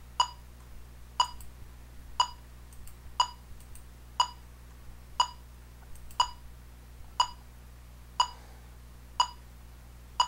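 Electronic metronome ticking steadily at about one short, pitched beep per second (around 60 beats per minute), keeping the pulse for the reading exercise.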